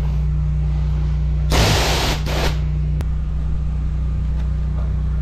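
Engine of a high-pressure drain jetter running steadily. About one and a half seconds in, a loud hiss lasts about a second: a short blast of water from the jetter lance.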